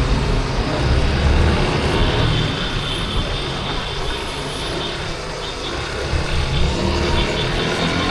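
A Yamaha Crosser 150's single-cylinder engine running while the motorcycle rides through city traffic, with wind noise and the sound of the surrounding traffic. A faint high whine runs through the middle.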